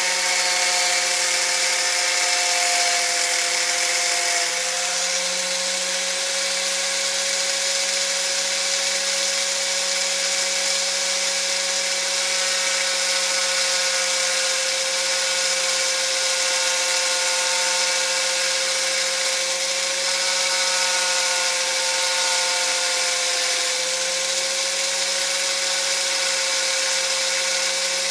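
Electric power sanding tool running steadily against wood: a steady motor whine over the hiss of abrasive on the carving, its pitch shifting slightly a couple of times.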